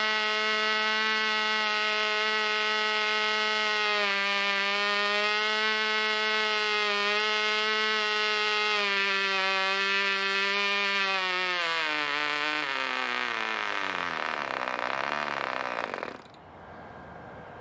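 Cox .049 Baby Bee glow engine turning a 6x3 propeller, running flat out with a steady high-pitched buzz. About eleven seconds in, its pitch starts to fall, wavering as it slows, and the engine stops about sixteen seconds in.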